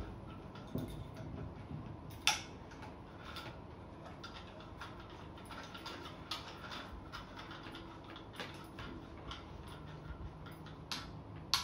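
Light ticks and clicks of an IKEA Årstid table lamp's socket being screwed by hand onto its threaded metal stem, with a sharper click about two seconds in and another near the end.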